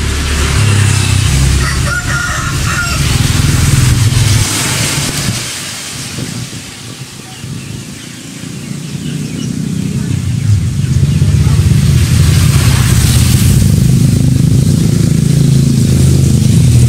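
A motor running with a deep, uneven hum that fades for a few seconds in the middle, then comes back louder and steadies for the rest.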